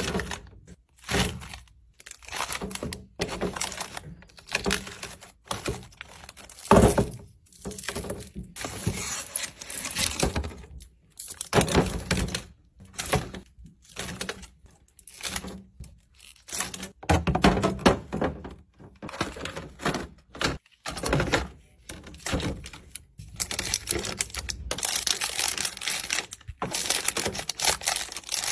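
Wrapped string cheese sticks and yogurt tubes being dropped and packed into clear plastic fridge bins: irregular knocks and thunks against the plastic, with the wrappers crinkling in between.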